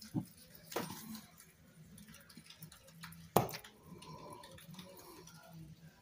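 Small handling noises from crafting: a few sharp clicks and light taps as a plastic picking tool and a sheet of self-adhesive pearls are handled on a cutting mat and card, the loudest click about three and a half seconds in.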